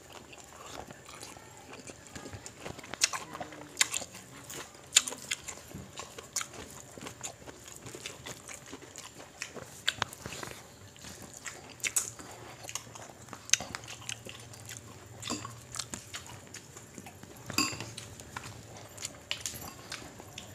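Close-miked eating sounds of people eating with their hands: chewing and irregular wet lip smacks and mouth clicks as food and fingers go into the mouth.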